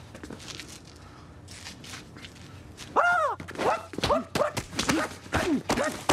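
A man's shrill martial-arts battle cries in the Bruce Lee manner. Several yelps, each rising and then falling in pitch, start about halfway in. Sharp slaps and thuds of punches and blocks are mixed in with them, and faint foot shuffles come before.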